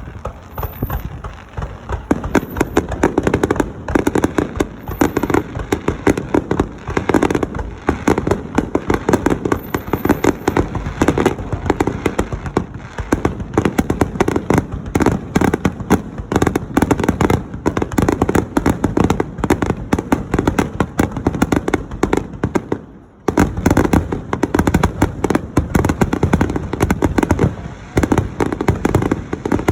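Fireworks barrage: a dense, continuous stream of bangs and crackling bursts fired in rapid succession as a finale, with a brief lull about three-quarters of the way through.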